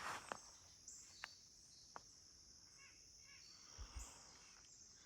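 Faint outdoor ambience: a steady high-pitched background hiss, a few soft clicks early on, a few small bird chirps about three seconds in, and a low thump about four seconds in.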